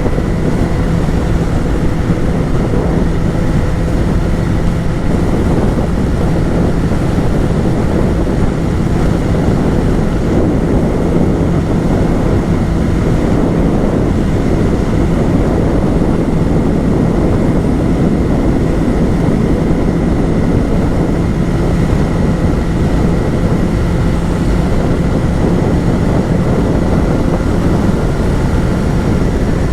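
Yamaha XJ6's 600 cc inline-four engine running at a steady pace while riding, its exhaust note holding an even pitch, with wind rushing over the microphone.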